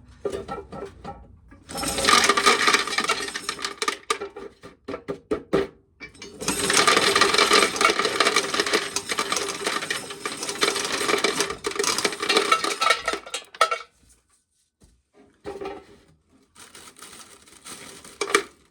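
Dry corn being shelled, the kernels rattling and clattering as they come off the cob and fall into a pail. It goes in bursts: two long stretches with a pause between, then shorter bursts near the end.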